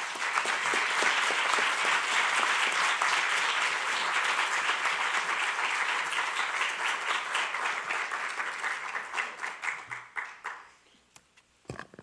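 Audience applauding with dense, steady clapping that tapers off and fades out about ten and a half seconds in.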